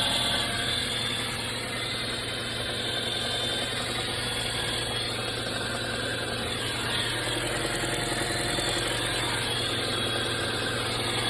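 Mitsubishi Pajero Mini H58A's 660 cc inline-four engine idling steadily with an abnormal noise after starting, which the owner suspects is the power-steering pump or the water pump.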